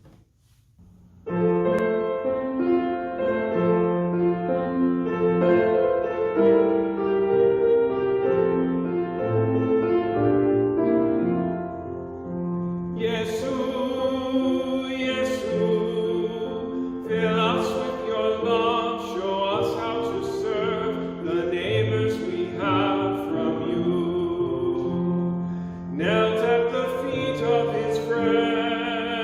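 Keyboard music begins about a second in and plays alone. A singer comes in about halfway through, with the keyboard continuing underneath.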